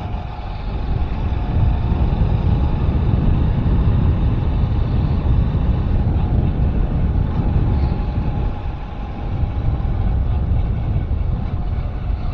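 Vehicle travelling along a road: engine running steadily under heavy low wind and road noise on the microphone, with a faint steady whine.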